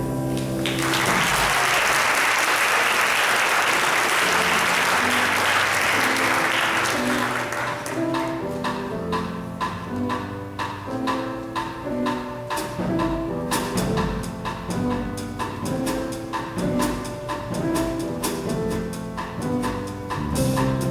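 Audience clapping for about seven seconds as a sung gospel-style song ends, then instrumental music with evenly spaced notes and a steady beat.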